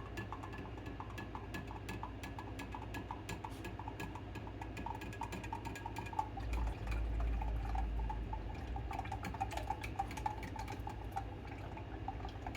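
Salt brine of vinegar and water stirred in a glass jar with a plastic drinking straw: quick light ticks and clinks of the straw against the glass over swirling liquid, with a duller low rumble of handling about halfway through.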